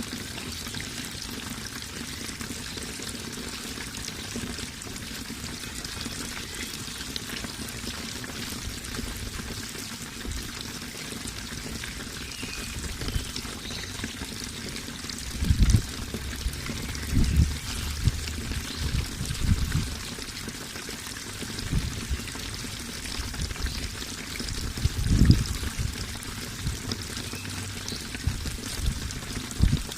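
Water pouring and trickling steadily. From about halfway through, irregular low thumps rise over it several times, the strongest about five seconds before the end.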